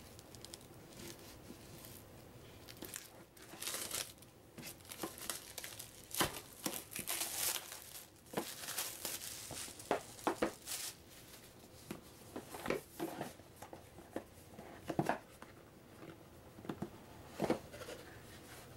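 Plastic wrap being torn and crinkled off a cardboard board-game box, densest in the middle, followed by scattered knocks and scrapes of cardboard as the box is turned over and its lid taken off.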